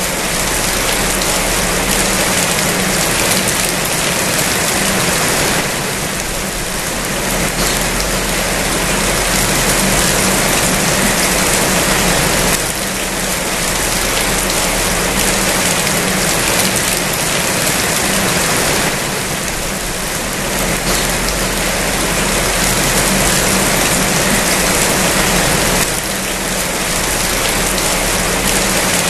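Steady heavy rain: a dense, even hiss with slight dips in level every six or seven seconds.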